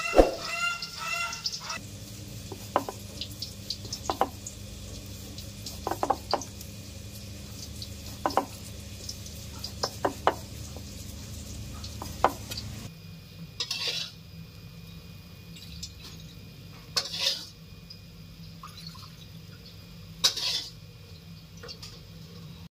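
A cleaver chopping raw pork on a wooden chopping board in single knocks a second or two apart. Then a metal spatula scrapes and stirs chopped garlic around a steel wok in a few strokes about three seconds apart.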